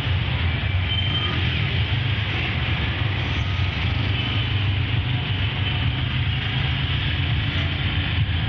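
Steady low rumble of slow, congested city road traffic heard from a vehicle: engine and road noise with no distinct single event.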